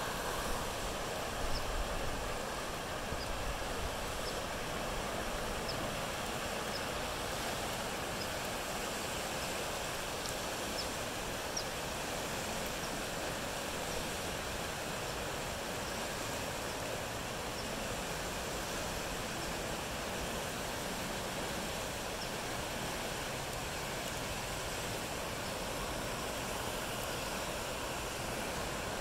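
Creek in flood after heavy rain: fast, muddy water rushing steadily over and around its banks, grass and brush.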